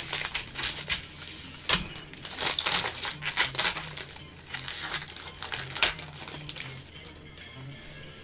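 Wrappers of trading-card packs crinkling and crackling as packs are ripped open and the cards handled, with many sharp crinkles that thin out after about six seconds. Background music plays underneath.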